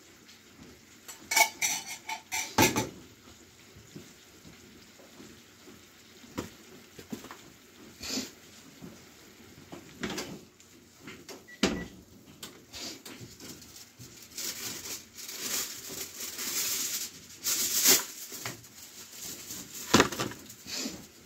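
Metal ladle and cup clinking against a frying pan, several ringing clinks close together near the start, then scattered knocks of utensils and pan on the stove. A few seconds of hiss past the middle.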